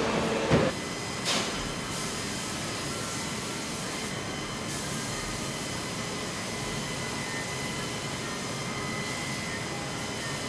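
Factory machinery noise that cuts off under a second in, giving way to the steady air hiss of a car-body paint booth, its ventilation and spray guns, with a few faint steady whines and a short knock about a second in.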